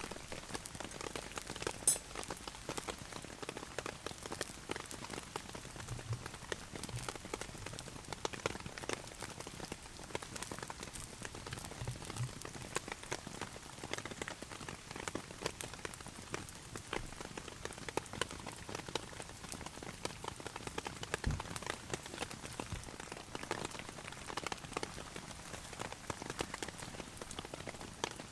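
Heavy rain pattering on a camping tarp, a dense irregular patter of drops, with a few soft low thuds.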